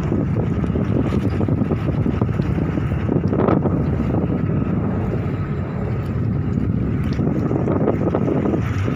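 Steady rumble of the ferry ALP Mutiara Barat's engines as it manoeuvres to berth, with wind buffeting the microphone. A brief sharper sound about three and a half seconds in.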